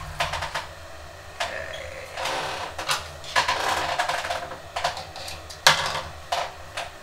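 Industrial overlock (serger) machine stitching a fabric strap in several short spurts, with fabric handling between them. A single sharp click comes near the end and is the loudest moment.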